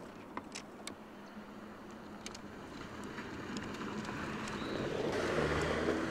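Ford Bronco SUV on 35-inch off-road tyres driving toward the listener on a dirt track and passing close by: engine and tyre noise swell steadily and peak about five and a half seconds in.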